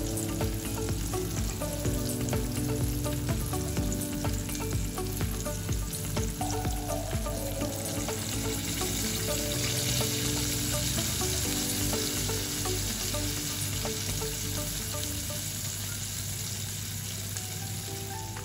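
Chicken pieces deep-frying in hot oil, a continuous sizzle full of fine crackles. The sizzle grows a little brighter around the middle.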